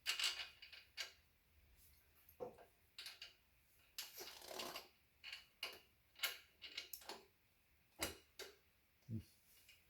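Irregular light clicks and taps of small metal parts being handled as a torque bar, slotted washer and lock nut are fitted onto an ebike hub motor's axle, with a short scrape about four seconds in.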